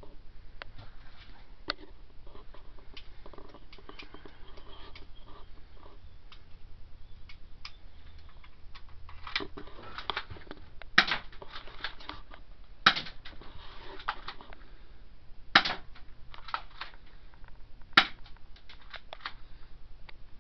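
BB gun firing: four sharp shots a few seconds apart, with lighter clicks and rattles of handling between them.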